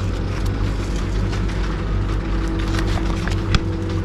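Steady low mechanical hum of supermarket chiller and ventilation plant, with a few light clicks of plastic packaging being handled, the sharpest about three and a half seconds in.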